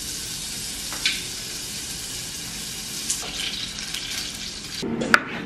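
Steady sizzling hiss of food frying in a pan on the stove. Near the end, music comes in and a knife chops once through a tomato on a wooden cutting board.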